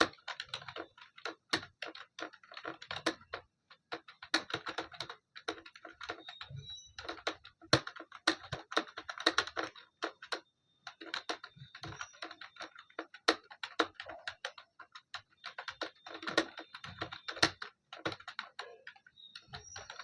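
Computer keyboard being typed on quickly during a timed typing test: dense rapid key clicks in runs of a second or more, broken by brief pauses.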